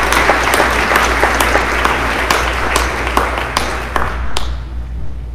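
Audience applauding, with many sharp individual claps, over a steady low hum. The applause dies away about four seconds in.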